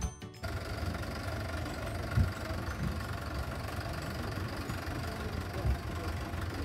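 Farm tractor engine idling steadily, with two brief louder thumps, one about two seconds in and one near the end.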